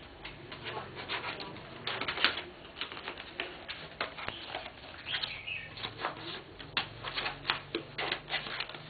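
Jigsaw lampshade pieces being handled and slotted together: a run of irregular light clicks and rustles.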